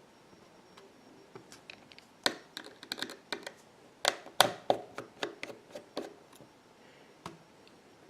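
Small repair tools clicking and tapping against an iPhone 6's internal metal parts during disassembly: an uneven run of sharp light clicks, thickest and loudest in the middle, with a last one near the end.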